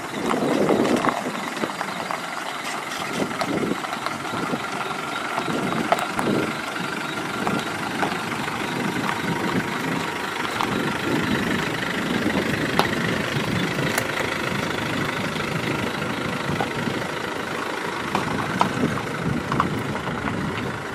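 Isuzu Trooper 4x4's engine running steadily at low revs, with a few faint clicks.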